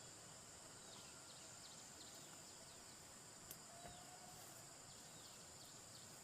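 Faint forest ambience: a steady high insect drone with scattered short chirps, and a single faint click about three and a half seconds in.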